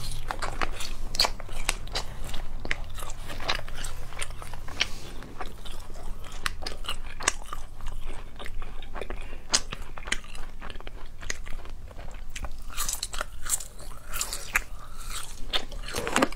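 Close-up chewing and biting of spicy gluten strips (latiao): a steady run of small, sharp mouth clicks.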